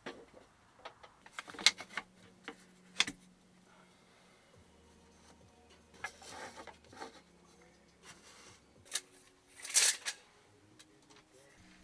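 Wooden battens being handled and laid on a van's vinyl floor: several sharp wooden knocks in the first few seconds, a rubbing scrape around the middle, and a louder short scrape near the end.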